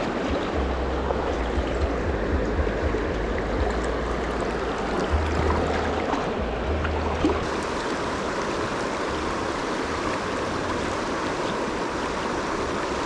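Steady rush of a river current running over shallows, heard close by. For the first half there is also a low, uneven rumble that fades about seven seconds in.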